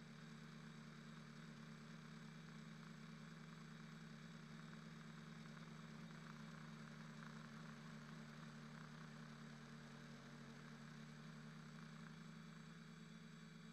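Faint, steady, muffled hum of a quadcopter's electric motors and propellers in flight, heard through the onboard camera.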